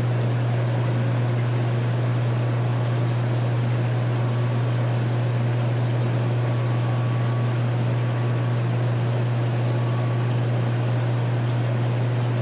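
Aquarium water heard with the microphone underwater: a steady low hum under an even wash of water noise, with a few faint clicks.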